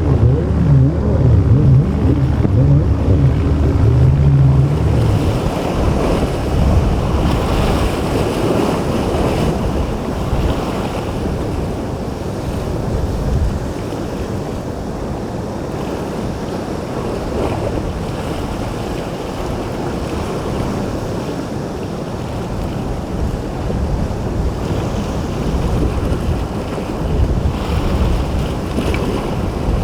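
Boat engines droning for the first few seconds, then the steady roar of rough water and breaking waves, with wind buffeting the microphone.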